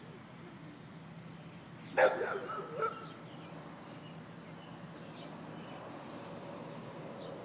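A dog barks in a quick run of three or four barks about two seconds in, the first the loudest, over a faint steady low hum.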